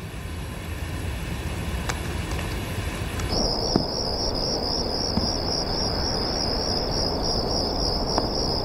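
Crickets chirping in a steady high trill that sets in about three seconds in, over a low background rumble.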